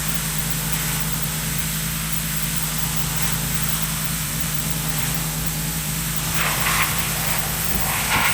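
Pressure washer running with a steady motor hum and a hiss of water spray, the jet hitting the moss-covered car body in louder bursts about six and a half and eight seconds in.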